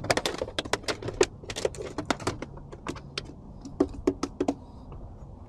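Fishing tackle being handled in the boat after a broken line: a quick, irregular run of light clicks and taps. They are dense for the first two seconds or so, thin out, and stop a little after four seconds, over a faint steady low hum.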